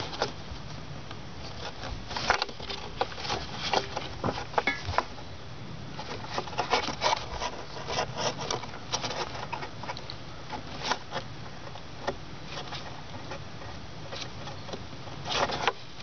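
Hands working at a tight plastic electrical connector and the cables around it: scattered clicks, taps and rubbing in bunches, with a sleeve brushing over the microphone and a louder burst of handling noise near the end.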